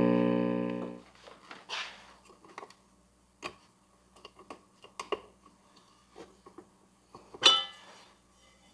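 Electrical hum from a powered-up 1960s Symphonic suitcase record player, whose turntable motor has voltage but will not turn. The hum cuts off about a second in. Then come scattered light clicks and taps of small parts being handled, with a louder click and clatter near the end.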